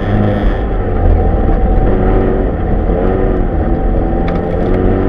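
Rally car engine heard from inside the cabin, driven hard along a snowy stage, its revs rising and falling as the driver works the throttle, over a steady rush of road and tyre noise.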